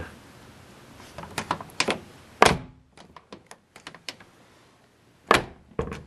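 Suburban door shut twice, each time a solid thunk as the freshly Fluid Film-lubricated latch catches on the striker, with light clicks from the latch and the door button before each. The door closes a little on the tight side at the striker.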